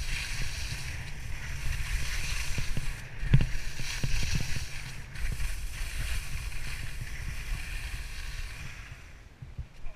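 Snow hissing and scraping under a descending rider, with wind rumble on the microphone and a few knocks from bumps. It dies away near the end as the descent slows.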